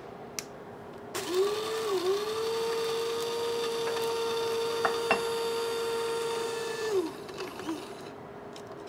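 Small electric blade grinder grinding roasted whole spices into powder. A click comes just before the motor starts, about a second in. It dips briefly, runs steadily for about five seconds, with a couple of ticks from hard bits of spice, and winds down near the end.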